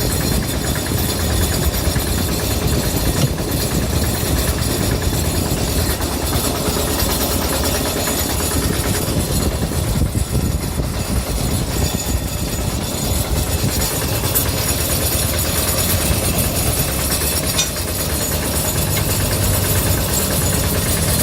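An engine running steadily with a continuous low rumble.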